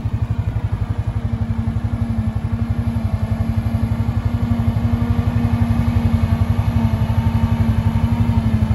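Quad bike engine idling close by, a steady, even, rapid pulse with a constant hum over it.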